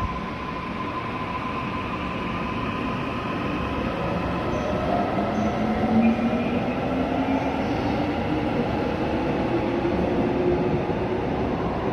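Subway train pulling out of the station. Over the steady rumble of the cars, a whine rises in pitch as the train accelerates, starting about four seconds in.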